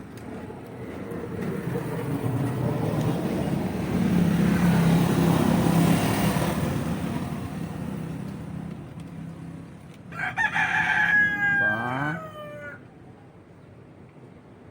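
A motor vehicle passes, swelling and then fading over several seconds, then a rooster crows once, the call ending in a falling glide.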